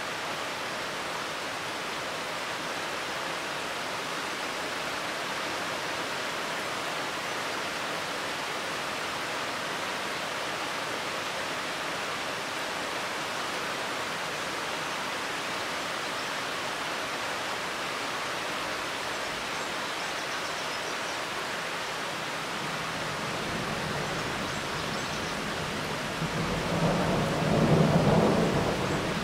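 Steady rain falling on trees and foliage, an even hiss. In the last several seconds a low rumble of thunder builds and swells, loudest just before the end.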